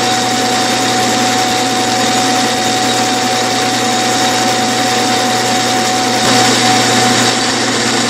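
Clausing metal lathe running steadily as it turns brass bar stock, with a constant whine from the machine. The sound grows a little louder about six seconds in.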